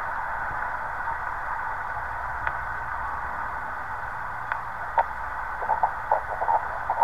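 Shortwave band noise from an 8-band QRP SDR transceiver's small built-in speaker as it is tuned down the 20 m amateur band in upper sideband: a steady, narrow-sounding hiss with a few faint clicks. Near the end, short broken snatches of a sideband voice station start to come through the static.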